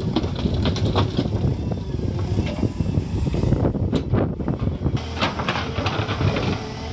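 JCB 3DX backhoe loader's diesel engine running under load, with many short knocks and clatter of soil and stones as the bucket dumps into a tractor trolley and then digs into stony ground.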